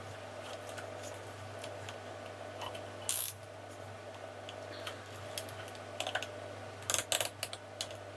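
Nylon cable tie being fed round and pulled tight, its ratchet clicking in quick runs, with a short rasp about three seconds in and a louder cluster of clicks near the end. A steady low hum runs underneath.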